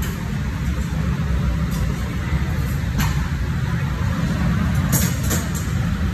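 Steady low rumble of buffet-room ambience, with a few sharp clinks about three and five seconds in.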